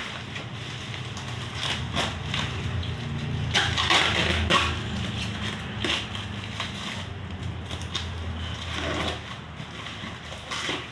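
Packaging being handled and opened: crinkling and rustling with scattered knocks, busiest in the first half.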